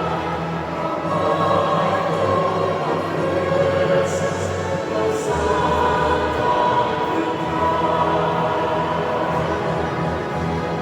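Choir singing slow, sustained chords over a steady bass line.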